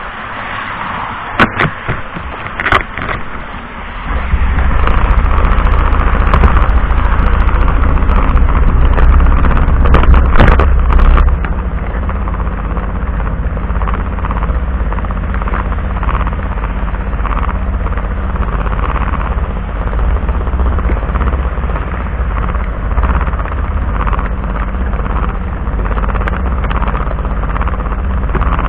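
Very heavy rain pelting a moving vehicle, with a deep rumble that comes in about four seconds in and eases a little near twelve seconds, and a few sharp knocks early on and around ten seconds, heard through a dashcam's microphone.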